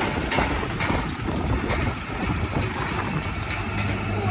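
Diesel engines of heavy earthmoving machinery, a bulldozer and dump trucks, running, with scattered knocks. A steady low engine hum comes up near the end.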